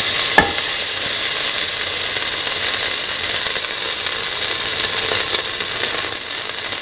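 Fennel seeds and green chili strips sizzling steadily in hot oil in a steel pan, with a single sharp tick about half a second in.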